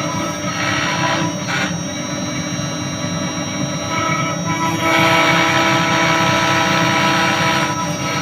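CNC router spindle running with a steady high whine while engraving, with a louder cutting hiss from about five seconds in until near the end.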